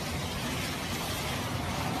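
Strong hurricane wind blowing with a steady hiss of rain, and gusts buffeting the microphone in an uneven low rumble.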